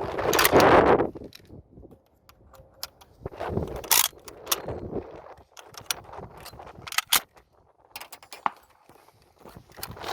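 A rushing noise for about the first second, then a string of sharp clicks and knocks at irregular intervals, the strongest about four seconds in and again around seven seconds.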